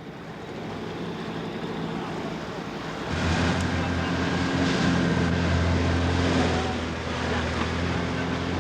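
Boat engine running at sea over wind and water noise, with a steady low engine hum that comes in loud about three seconds in.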